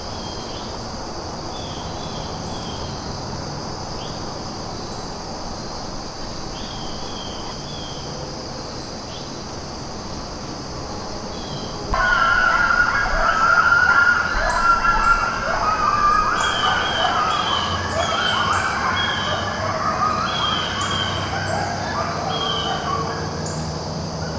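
A pack of coyotes breaks into howling and yipping about halfway through, many wavering voices overlapping, set off by sirens from town. Before that there is only a steady insect trill with occasional bird chirps.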